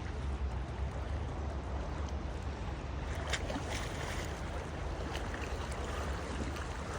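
Sea water washing and splashing, with wind rumbling on the microphone; from about three seconds in, a run of short, sharper splashes.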